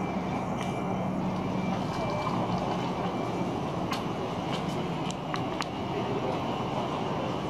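Steady city street noise with a GVB tram approaching along its rails some distance off. A low steady hum sits under it for the first few seconds, and a few sharp clicks come about four to five and a half seconds in.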